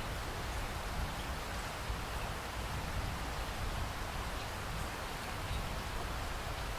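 Steady rainfall, an even hiss of drops with a low rumble underneath.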